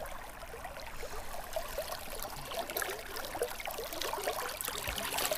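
River water babbling and trickling, many small bubbling blips over a steady rush.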